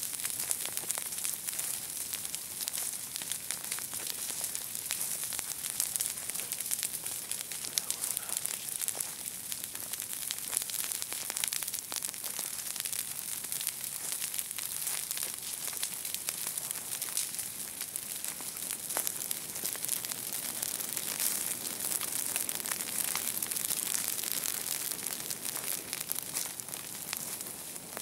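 Ground fire crackling steadily through dry grass and forest litter, a dense run of fine pops over a high hiss: a controlled back-burn lit along a firebreak.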